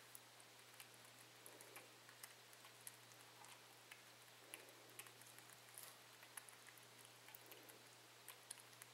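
Very quiet, irregular small wet clicks of a baby cottontail rabbit suckling milk from a feeding syringe, over a faint steady hum.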